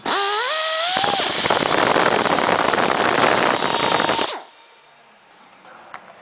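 Pneumatic rivet nut tool running as it sets a stainless steel rivet nut: a whine that rises as the air motor spins up, then a loud rush of air for about three seconds that cuts off suddenly.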